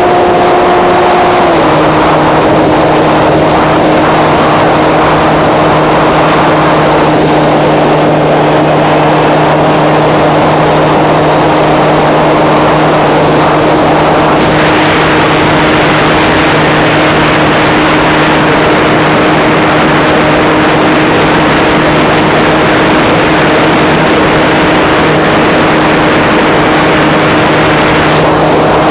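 Electric motor and propeller of a fixed-wing FPV model plane running steadily under heavy wind rush, heard through the plane's onboard microphone; the motor's pitch drops slightly about a second and a half in as the throttle eases.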